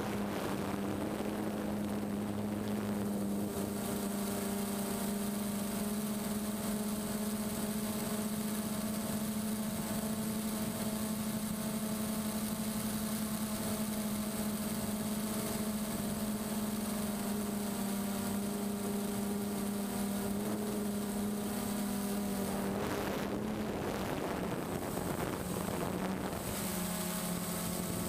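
DJI Phantom quadcopter's motors and propellers humming steadily in flight, heard close up from the camera carried on it. About 23 seconds in the sound turns rougher and noisier for a few seconds, then settles back to the steady hum at a slightly lower pitch.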